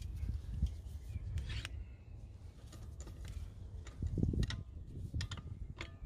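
Metal wheel brace working a car's wheel bolt loose, with scattered sharp metallic clicks and taps of the socket on the bolt, and a couple of duller low knocks from the handling.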